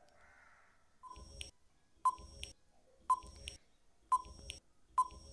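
Countdown-timer sound effect: five short electronic beeps with a clicky edge, one every second, ticking down the answer time on a quiz.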